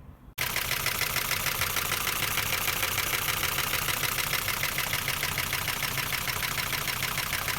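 Ford Focus 1.6 petrol engine running loudly with a fast, regular mechanical pulsing, starting suddenly about half a second in. The mechanic finds this heavy noise and knock suspicious in an engine rebuilt 20,000 km ago.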